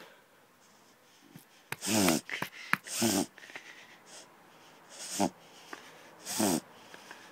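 Dog reverse sneezing: four loud, rasping snorting inhalations about 2, 3, 5 and 6.5 seconds in, with quieter breathing between. The owner puts the attack down to stick eating and pulling on the lead.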